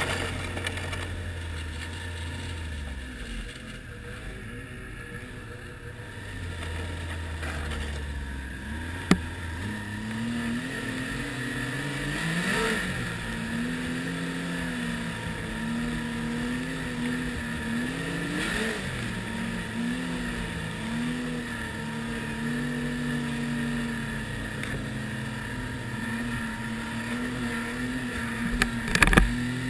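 Ski-Doo Renegade 1200 snowmobile's four-stroke three-cylinder engine, heard from the rider's seat. It runs low at first, then climbs in pitch about nine seconds in and holds a wavering cruise with two brief surges. There is a sharp knock about nine seconds in and a couple of loud bumps near the end.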